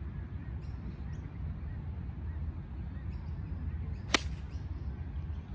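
A 9-iron striking a golf ball once: a single sharp click about four seconds in, over a steady low rumble, with faint bird calls.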